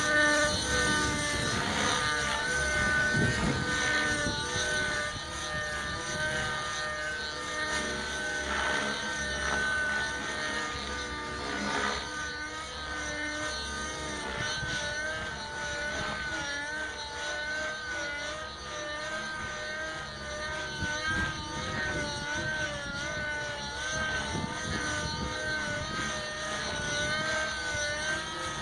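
Nitro-engined RC helicopter in flight: the small glow engine and rotors give a high, buzzing whine whose pitch wavers up and down continually as the throttle and pitch change.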